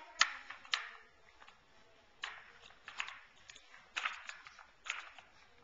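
Hard plastic toy car clacking and knocking as a baby handles it: about six sharp, light clicks, unevenly spaced.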